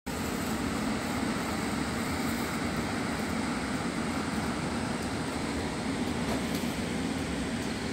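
Steady outdoor rushing noise with a low rumble, unbroken and even in level throughout.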